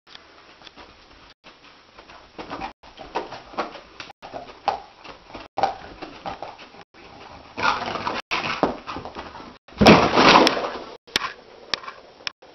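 Sleeping dog whimpering and giving small muffled yips as it dreams, its legs paddling. Two louder noisy bursts follow, about eight and ten seconds in, as it scrambles up from the carpet.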